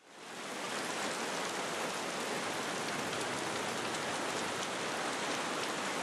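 Steady rainfall, fading in over the first half second.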